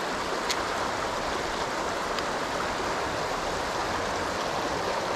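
Shallow river water rushing steadily over stones, with a couple of faint clicks.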